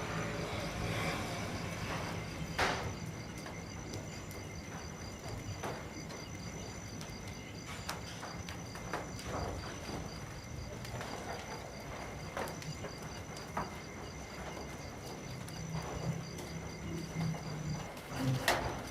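Rain dripping, with scattered sharp drops ticking and two louder ones, about three seconds in and near the end, over a steady high-pitched insect trill and an evenly pulsing chirp. A low hum sits underneath.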